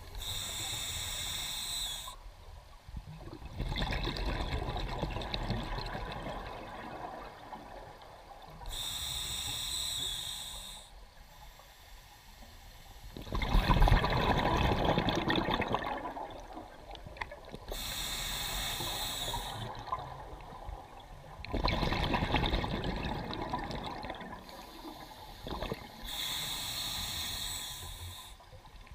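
Scuba diver breathing underwater through a demand regulator, in a slow regular cycle. Four inhalations, each a hiss of about two seconds, alternate with three exhalations, each a longer burst of bubbling from the exhaust valve.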